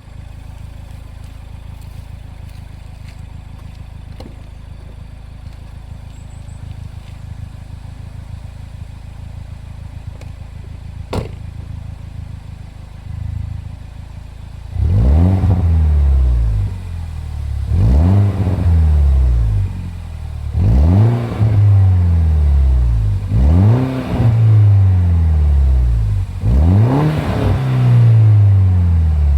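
2007 MINI Cooper S (R56, N14 turbocharged four-cylinder) through a Milltek Sport non-resonated cat-back exhaust. It idles steadily for about thirteen seconds, with a single sharp click near the middle and a short blip of the throttle. Then it is revved hard five times, about three seconds apart, each rev climbing and falling back with burbles and crackles from the exhaust.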